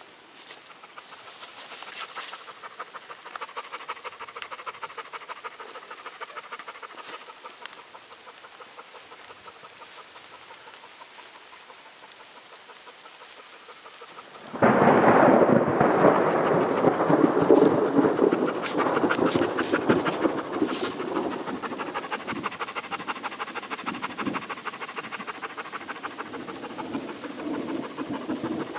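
A dog panting rapidly, its breaths coming in a fast, even rhythm. The panting suddenly becomes much louder and fuller about halfway through, as if right at the microphone.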